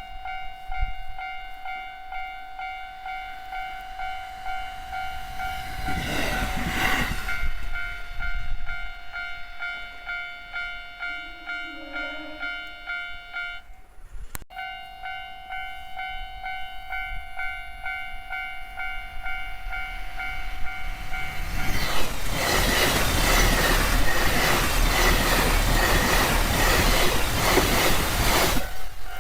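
Railway level-crossing bell ringing in a steady pulsing pattern, breaking off briefly midway, with a train going through the crossing, loud and noisy, for the last several seconds. There is also a brief loud burst about six seconds in.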